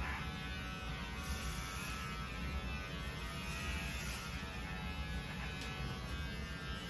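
Electric hair clippers buzzing steadily as they shave a head down to the scalp.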